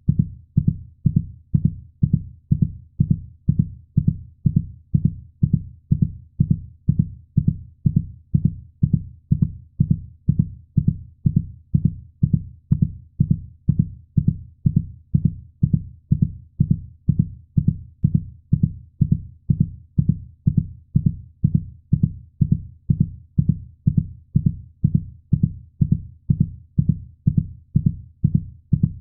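Heartbeat sound: a steady, even rhythm of low, dull thuds, about two a second, that never changes.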